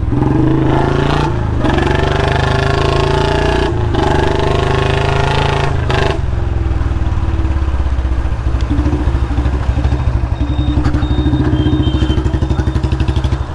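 Royal Enfield Standard 350 single-cylinder engine and exhaust under way, pulling up in revs with three brief breaks as the throttle closes in the first six seconds, then settling into an even, steady thump at cruising throttle. The exhaust packing has just been renewed, and the owner says it no longer leaks.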